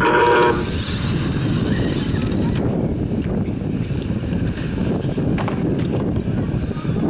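A half-second electronic start tone, then the high whine of radio-controlled electric touring cars rising in pitch as they accelerate off the grid. After that the cars run on around the track as a steady mixed noise.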